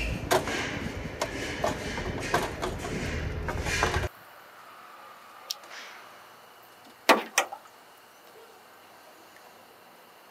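A frying pan worked over a burner: a dense, noisy clatter full of sharp clicks that cuts off about four seconds in. After that it is quiet, with a few sharp knocks of a plastic spoon against a plastic bowl, the loudest two close together about three seconds after the cut.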